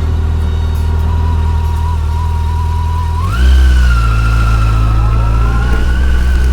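Yamaha FJR1300's inline-four engine running on the move, its pitch and loudness rising sharply about three seconds in as the revs climb, then holding steady at the higher note.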